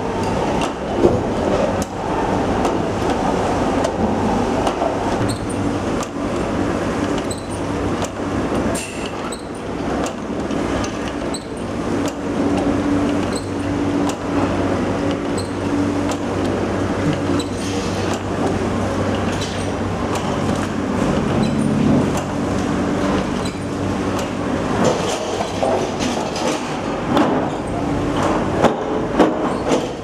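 Steady machine hum and rumble of a metal workshop, with scattered light metallic clinks and knocks from parts being handled.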